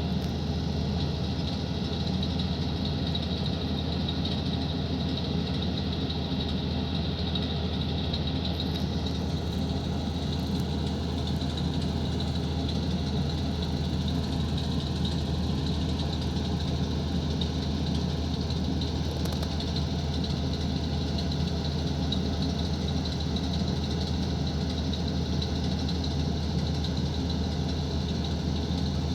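Dongfeng Cummins diesel engine of a horizontal directional drilling rig running steadily at a constant speed, with no change in pitch.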